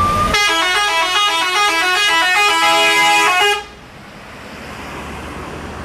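Bus telolet horn, a multi-trumpet air horn, playing a quick stepping melody of several notes sounding together for about three seconds, then stopping suddenly.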